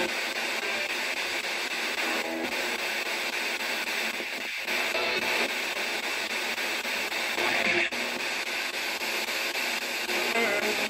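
P-SB11 ghost box sweeping rapidly through radio stations: steady radio static chopped with brief clipped snatches of broadcast sound and music, played through a small external speaker.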